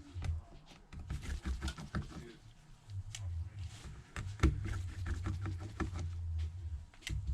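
Irregular small clicks and taps of a precision screwdriver and tiny screws as screws are taken out of a smartphone's plastic cover and set down, over an on-and-off low hum.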